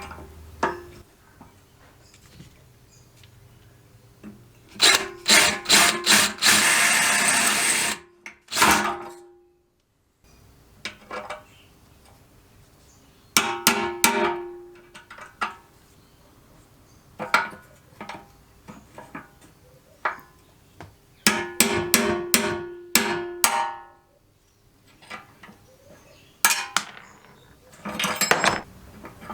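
Bursts of sharp metallic clanks and knocks, many with a short ring, from tools working on a steel jerry can, with a harsh rasping hiss lasting about two seconds near the quarter mark.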